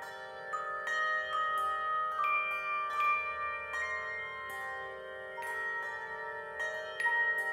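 Handbell choir playing a piece: brass handbells rung one after another, each note ringing on and overlapping the next, over a steady lower held chord.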